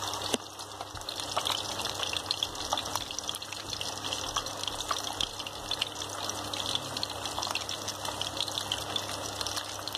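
Masala-coated fish steaks frying in hot oil in a pan, sizzling steadily with a dense patter of small crackles.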